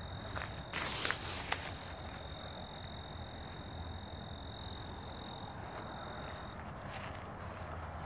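An insect's steady high trill, one thin unbroken tone that stops about three-quarters of the way through, with a short rustle about a second in.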